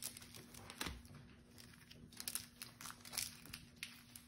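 Faint crinkling of a foil Pokémon booster pack wrapper being handled, in scattered small crackles.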